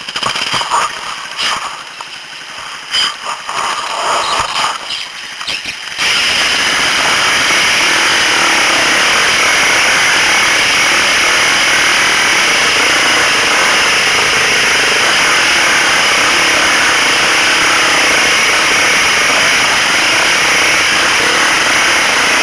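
Off-road motorcycle riding along a dirt trail, picked up by a camera carried on the ride. After a few seconds of uneven clicks and knocks, a loud, steady rush of engine and wind noise sets in abruptly about six seconds in.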